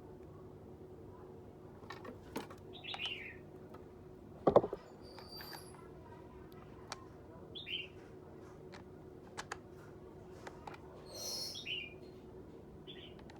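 A few short, high bird chirps spaced through the quiet, over a faint steady hum, with one loud knock about four and a half seconds in and a few light clicks.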